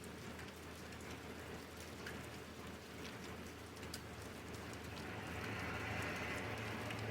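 Steady rain falling, with individual drops ticking on surfaces. The hiss swells and grows louder about five seconds in.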